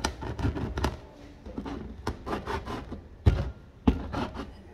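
Whole black peppercorns crushed under the base of a wooden pepper mill on a plastic cutting board: gritty crunching and rubbing, broken by several sharper knocks of wood on the board, the loudest at the start and around three and four seconds in.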